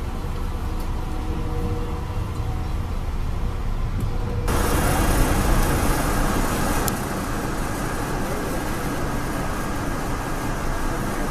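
Passenger train running on the rails: a steady low rumble of wheels on track. About four and a half seconds in it turns suddenly into a louder, fuller rushing noise, heard at the rear of the last car while passing a double-stacked container freight train on the next track.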